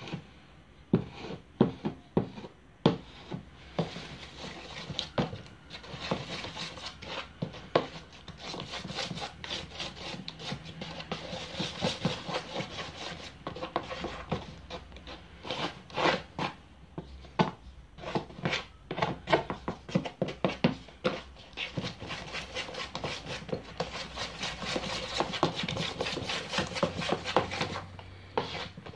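Putty knife stirring and scraping powdered wall filler with water in a mortar tub, mixing it toward a paste: a run of rapid, uneven scrapes with sharp knocks of the blade against the tub, the knocks thickest in the first few seconds.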